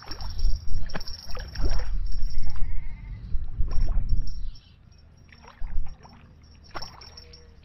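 A hooked fish splashing and thrashing at the water's surface as it is played in to the landing net. A heavy low rumble runs under the splashes for the first four and a half seconds, and the sound then drops to a few scattered splashes.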